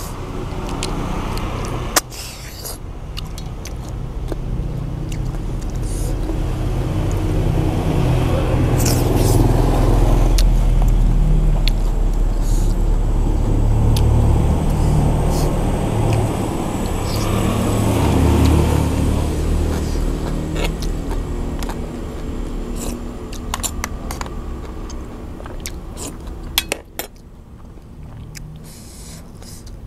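A motor vehicle engine running, growing louder over several seconds and then slowly fading away, with a few sharp clicks from eating.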